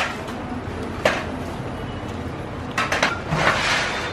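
A few sharp clinks and knocks of a steel baking tray as baked pastries are set out on it, over a steady background hum.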